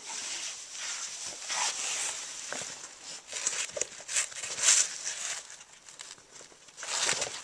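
Rustling and scuffing of a waterproof backpack's TPU-laminated ripstop nylon fabric and its straps as it is handled and lifted onto the back, in irregular bursts. The loudest burst comes a little after the middle.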